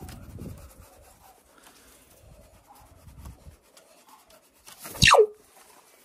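Faint scratching and rustling, then about five seconds in a pet raven gives one short, loud call that falls steeply in pitch.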